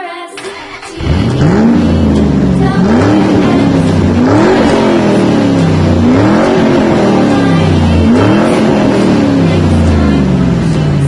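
Car engine revving up and down over and over, starting about a second in, with its pitch climbing and dropping back roughly every two seconds.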